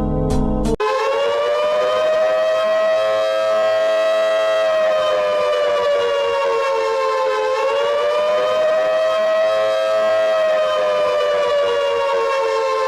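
Civil defense warning siren sounding one long steady wail, its pitch wavering slowly with a slight dip about halfway through. It cuts in abruptly about a second in as keyboard music stops.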